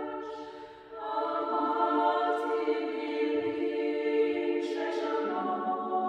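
Mixed chamber choir singing a cappella: a held chord fades out, then a new phrase enters about a second in, with the hiss of sung 's' consonants, and the bass steps lower near the end.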